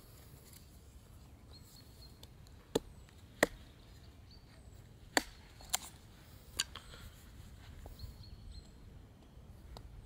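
Knife blade chopping into wood: about five sharp knocks, unevenly spaced, over a quiet background.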